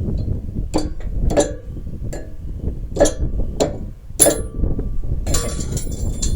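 Steel parts and tools clinking and clanking together: about six sharp metallic knocks in a few seconds, each with a short ring, over a low rumble.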